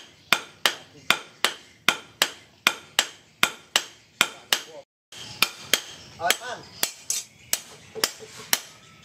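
Hand hammer forging a red-hot steel sword blade on a steel-post anvil: sharp metallic blows about two and a half a second. The hammering breaks off for a moment about five seconds in, then goes on at the same pace.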